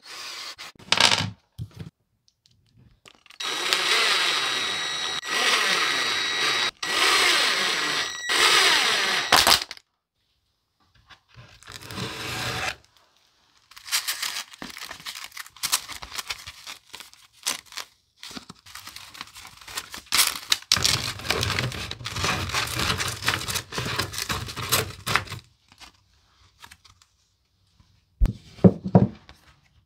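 A cordless drill running in a few short back-to-back bursts with a steady whine, followed by a long stretch of clicking and rustling as hook-and-loop sanding discs are handled.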